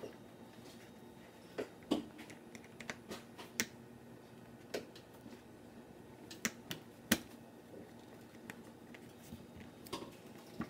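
Sharp plastic clicks and snaps as the parts of a white snap-together plastic test tube rack are pressed into place by hand. The clicks come singly at irregular intervals, the loudest about two seconds in and about seven seconds in.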